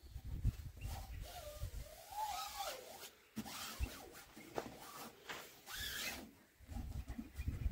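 Hands rubbing and pressing a vinyl stripe sticker flat onto a tractor's glossy painted bonnet, in short strokes with low handling thumps. Twice there is a swish with a brief wavering squeak.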